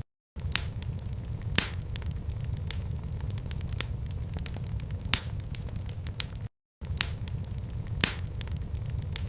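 Wood fire crackling in a fireplace: a steady low rumble and hiss with scattered small crackles and a few sharp pops, about one every three seconds. The sound cuts out to silence for a split second twice.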